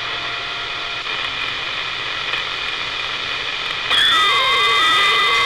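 CB radio receiver giving static hiss with faint steady heterodyne whistles; about four seconds in, a station keys up and a louder carrier comes in with steady and wavering whistling tones, pushing the S-meter up.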